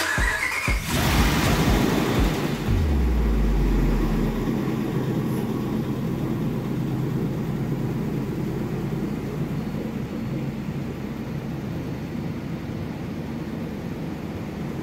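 Freshly overhauled Dodge RAM 1500 V8 engine starting up with a brief rising whine, then running steadily at idle and slowly getting quieter as it settles.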